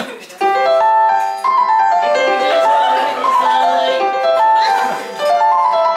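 Electronic keyboard playing a bright melody of held notes that step up and down in pitch, starting about half a second in.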